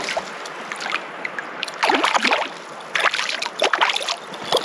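A hooked brook trout thrashing at the lake surface, splashing in irregular bursts, with the heaviest splashing about two seconds in and again around three to four seconds in.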